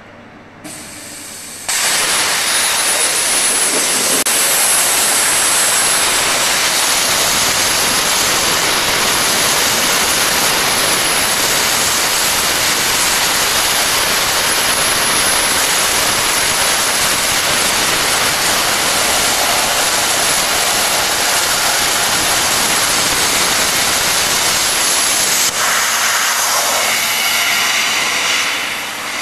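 Hypertherm MaxPro200 plasma torch cutting 25 mm Hardox steel plate at 200 amps. The arc starts suddenly about two seconds in with a loud, steady hiss and a thin high whine, and the sound shifts in tone a few seconds before the end.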